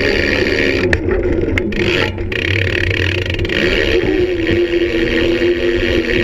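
Wheels rolling over smooth skatepark concrete, a steady rolling noise with a sharp click about a second in.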